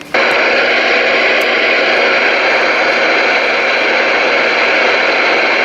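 Loud, steady static hiss from a CB radio's speaker, cutting in abruptly as the transmit key is released and the receiver opens.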